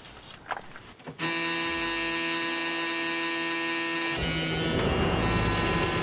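School bus engine being started: a steady electric buzz begins suddenly about a second in, and about three seconds later a low engine rumble joins as the engine runs, with the buzz fading back.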